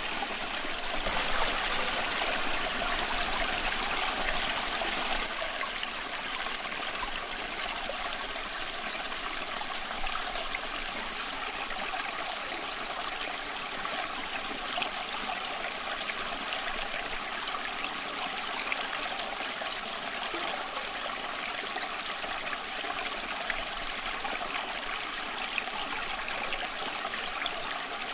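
A small stream of water running and babbling steadily over stones, with fine trickling splashes, a little louder in the first few seconds.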